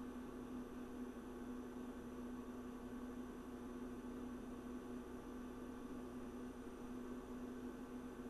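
A steady, unchanging low hum with a faint hiss underneath.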